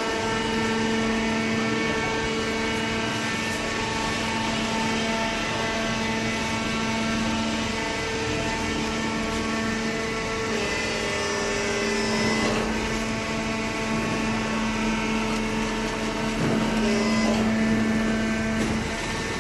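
Hydraulic paper and cardboard baler running: its electric motor and hydraulic pump give a steady hum with a constant whine above it. The upper tones shift slightly about ten and twelve seconds in.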